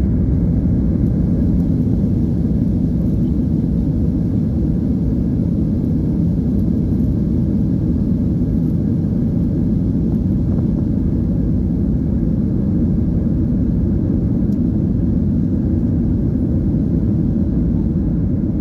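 Steady low cabin rumble of a Boeing 737-800 rolling out on a wet runway after touchdown, with its CFM56 engines and wheels heard from inside the cabin.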